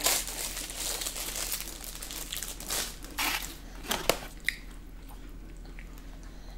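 Close-miked crunchy chewing of fried chicken fingers, with some crinkling of food packaging. A few sharp clicks come about four seconds in, and then it quietens.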